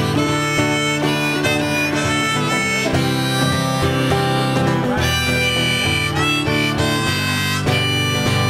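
Harmonica played from a neck rack, a solo of held and bending notes over acoustic guitar accompaniment.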